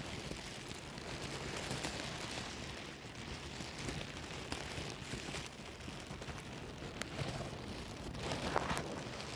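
A plastic bag being rustled and crumpled by hand: steady crinkling with scattered sharp crackles, swelling to its loudest burst near the end.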